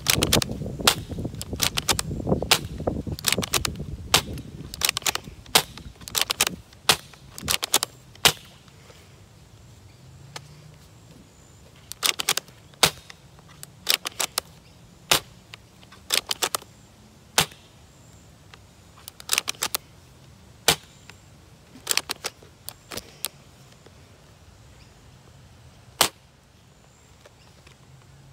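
Gel blaster test-firing gel balls: a quick run of shots in the first several seconds, then single or paired shots about once a second.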